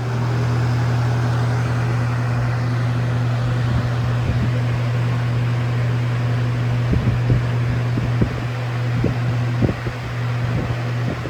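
Lasko Air Flex box fan with a full-sized McMillan motor and Weather Shield blades running: a strong, steady motor hum under the rush of moving air, with a few short knocks in the second half.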